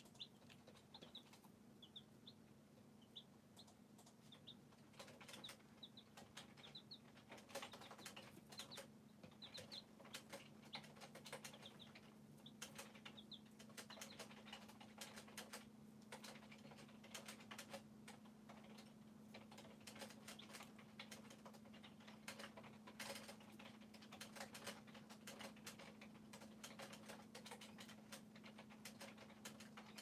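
Chicks pecking at crumble in a plastic feeder, giving fast, irregular taps and clicks, with soft, short peeps through roughly the first half. A steady low hum runs underneath.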